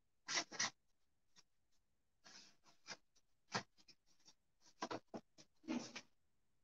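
Rustling and scraping of a folding bathtub's thin, shower-curtain-like fabric being pulled over its frame, in short irregular bursts with a few light knocks.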